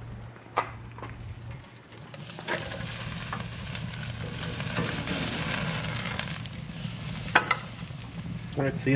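Bone-in ribeye sizzling on a hot grate over flaring lump charcoal, the sizzle swelling a couple of seconds in and easing off again near the end. A few sharp metal clicks of tongs on the grate.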